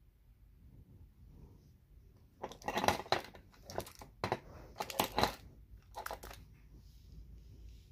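Jewelry being handled on a tabletop: a run of short rustling and clicking bursts from about two and a half to six seconds in, loudest near three and five seconds in.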